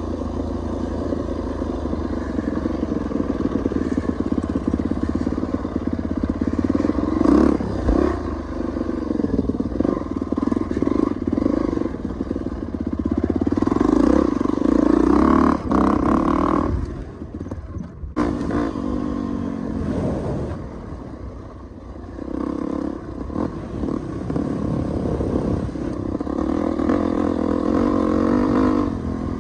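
Dirt bike engine running on a trail ride, its revs rising and falling as the throttle is worked. The revs drop off briefly a little past halfway, then build again.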